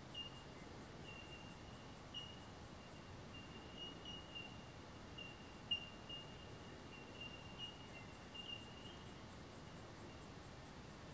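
Faint insect chirping: short thin notes at one steady pitch repeating irregularly, one louder note about halfway through, over a very high, even pulsing about four times a second that fades out for a stretch and returns.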